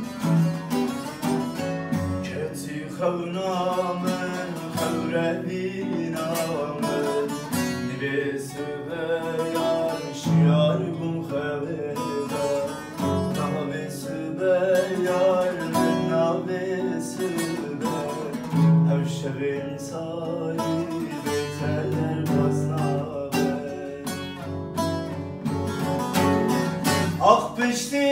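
Acoustic guitar strumming chords under a bağlama (long-necked saz) picking the melody, in an instrumental passage between sung verses.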